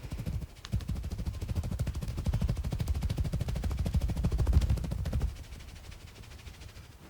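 Hands drumming out fast percussive massage strokes (tapotement) on the body, many even strikes a second, stopping about five seconds in.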